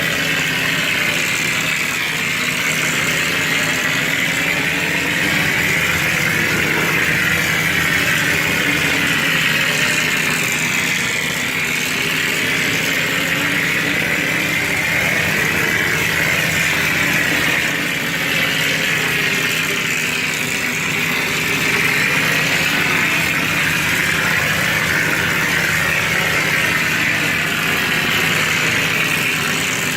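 Cement skim-coat spraying machine running steadily while spraying, a continuous mechanical hiss and drone whose pitch drifts slowly up and down over a steady low hum.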